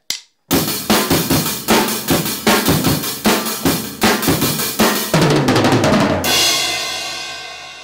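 Drum kit played with sticks: a sharp click, then a steady beat of bass drum, snare and cymbals. About five seconds in comes a quick run of strokes, ending in a crash whose ringing slowly fades out.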